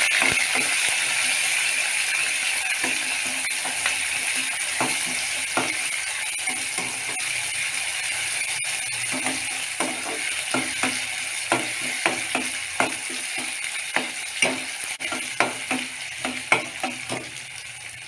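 Sliced onions sizzling in hot oil in an aluminium kadai, the hiss slowly dying down, while a flat metal spatula scrapes and clinks against the pan in irregular strokes that come more often in the second half.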